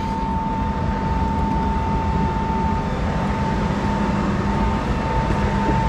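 Tractor and grain bagger running steadily while filling a silo bag, with a constant high-pitched whine over a low hum.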